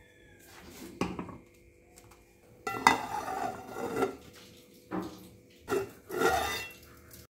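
Aluminium plate-lid and metal vessels clattering and scraping as they are handled over a clay pot: a knock about a second in, a longer rattle, then several more short knocks.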